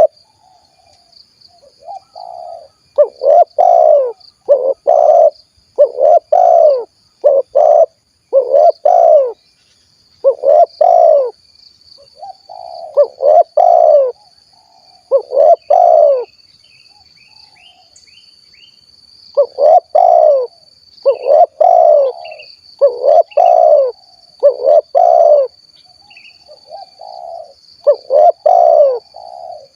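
Spotted dove (tekukur) cooing its 'kuk 1' song: groups of low, repeated coo notes, with a pause of about three seconds midway.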